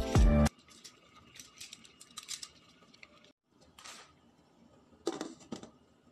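Background music stops half a second in. Faint handling noises follow: light rustles and clicks as foil-wrapped rolls are laid in a stainless steel steamer basket. About five seconds in, a glass lid is set on the steel steamer with a short clink.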